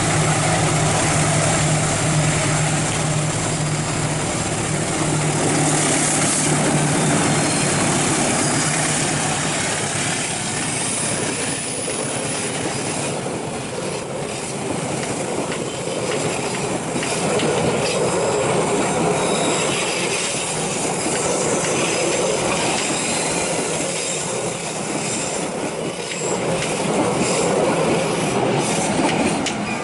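Passenger train hauled by a diesel locomotive climbing a grade: the locomotive's engine hums steadily for the first several seconds as it comes up, then the coaches roll past close by with a continuous rumble of wheels on rail and repeated clicking.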